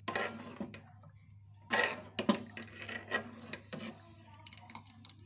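Metal ladle scraping and stirring against a steel pot of thick soup, in a few short scrapes about two seconds in and again around three seconds, over a steady low hum.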